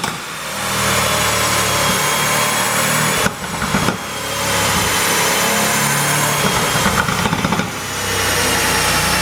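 Mercedes-AMG C63's twin-turbo V8 running loud under throttle, with three brief lifts off the throttle where the exhaust crackles and pops, the overrun pops that the tune is made to give.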